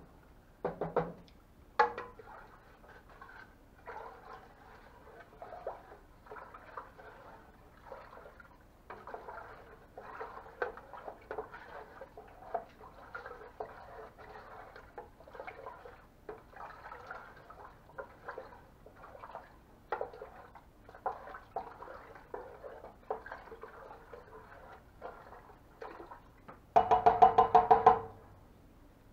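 Wooden spoon stirring and knocking in a pot of hot soap mixture on the stove, a run of soft irregular scrapes and clinks with a couple of louder knocks near the start. Near the end comes a loud, fast metal-on-metal rattle with ringing, lasting about a second.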